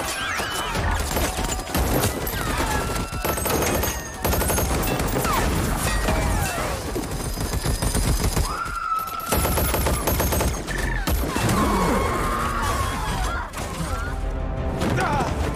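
Rapid automatic gunfire from a film battle scene, shots coming thick and fast with music and whooshing effects mixed underneath; the low rumble drops out briefly about nine seconds in.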